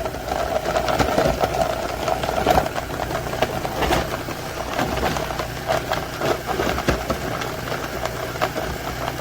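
Cuisinart food processor motor running with a fine grater disc spinning, a steady hum overlaid by irregular clicks and rattles as food is grated.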